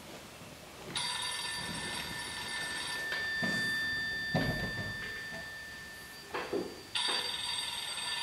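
Telephone ringing sound effect: two long rings about six seconds apart, with a thinner steady tone carrying on between them, as a call is put through.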